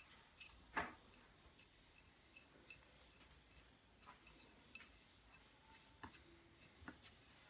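Faint, scattered metal clicks from a black-steel adjustable wrench as its thumbwheel worm screw is turned and the jaw slides, with one louder click about a second in.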